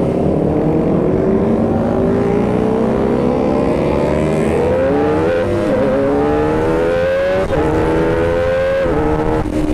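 Kawasaki Ninja ZX-25R's 250 cc inline-four on its stock exhaust, accelerating: the engine note climbs, dips briefly at gear changes, climbs again, then drops near the end.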